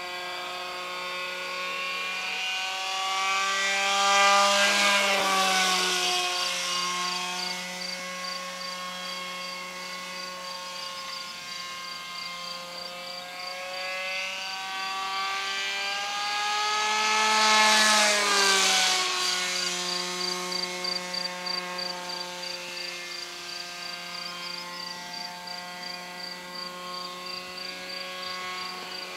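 Radio-controlled F-16 model aircraft's motor running in flight, making two passes: each time the drone rises in pitch and loudness as the model approaches, peaking about four and eighteen seconds in, then drops in pitch and fades as it flies away.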